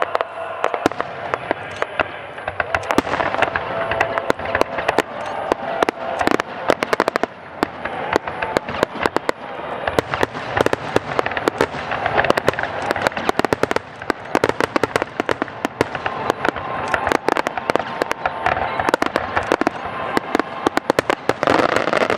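Aerial fireworks display: a dense, continuous run of shell bursts, bangs and crackling pops, many overlapping with no break.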